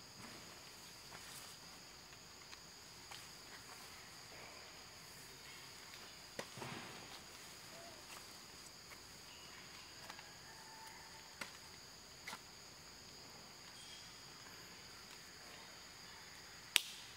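Forest insects droning steadily at two high pitches, with a few scattered clicks and a brief rustle about six and a half seconds in. A sharp click near the end is the loudest sound.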